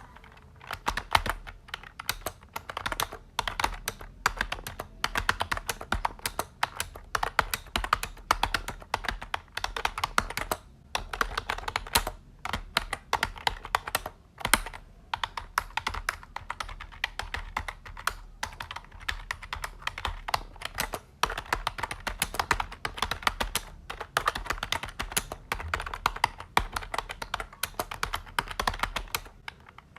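Fast, continuous typing on a computer keyboard: rapid key clicks, broken by a few brief pauses.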